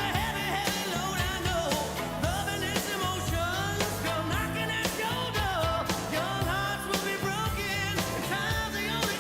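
Background pop-rock song with a sung vocal over a steady drum beat and bass.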